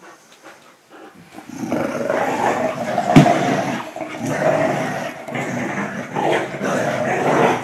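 Dogs growling steadily in play during a rope-toy tug-of-war between a pit bull and a German shorthaired pointer. The growling starts about a second and a half in and carries on without a break, with one sharp thump about three seconds in. It sounds fierce but is play growling, not a real fight.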